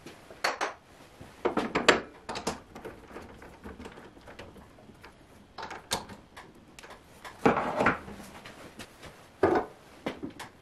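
Irregular metallic clicks, knocks and short rattles from mounting a square wooden blank on a stopped wood lathe: a chuck key working the jaw chuck and the blank and tailstock parts bumping against metal. There are separate knocks with a few louder clattering clusters, and no motor running.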